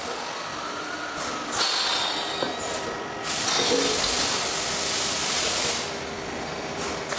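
320 kN hydropneumatic press hissing with compressed air: a steady hiss, with louder bursts of high hiss about a second and a half in and again from about three seconds to nearly six seconds.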